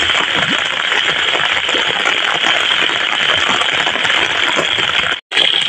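Heavy rain falling steadily, an even loud hiss. It breaks off for a split second near the end at an edit, then resumes.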